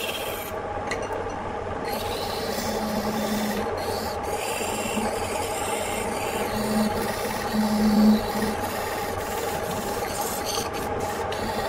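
Turning chisel cutting a spinning wooden blank on an electric wood lathe: a steady rasping scrape over the motor's hum. A low drone swells several times, loudest about eight seconds in.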